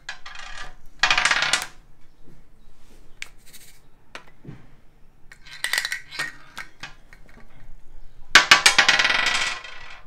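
Sound cubes from a memory-matching board game being picked up and shaken, their contents rattling in short bursts: about a second in, again near the middle, and longest and loudest near the end.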